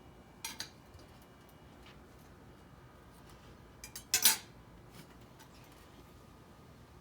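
Cutlery against a plate: a short clatter about half a second in and a louder, brief scrape a little past four seconds in.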